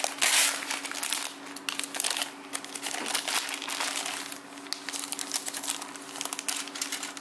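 Clear plastic bags crinkling and rustling as bagged plastic model-kit runners are handled and laid out, loudest just after the start.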